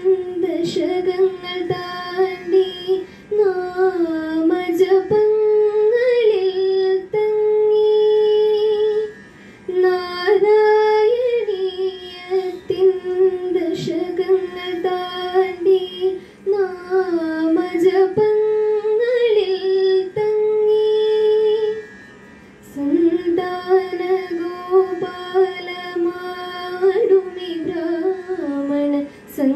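A young woman singing solo into a microphone: a slow, melodic song with long held notes that glide and turn in pitch, with short breaks about nine and twenty-two seconds in.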